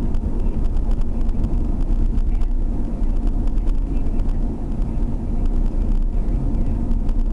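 Steady road and engine noise of a moving car heard from inside the cabin: an even low rumble with a constant hum, unchanging throughout.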